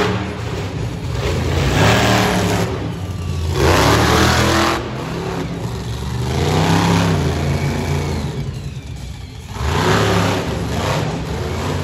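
Bone Shaker monster truck's engine revving hard in repeated surges, its pitch climbing and falling about four times, echoing in a large arena.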